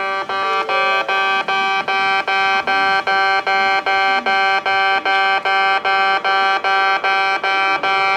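Kintetsu in-station level crossing alarm sounding its buzzer-like 'bee-bee-bee' warning: a pitched electronic beep repeating evenly about three times a second, the peculiar crossing tone heard at Kintetsu crossings.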